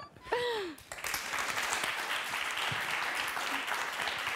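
Applause, beginning about a second in and going on at a steady level.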